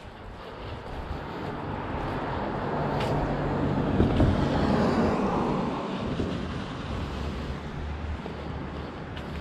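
A car passing on a wet road, its tyre and engine noise building to a peak about four seconds in and then fading away.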